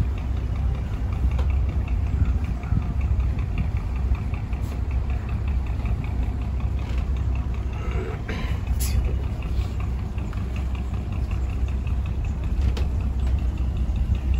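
Houseboat engine running steadily under way: a deep, even hum with a fast regular tick, and a few brief sharp clicks.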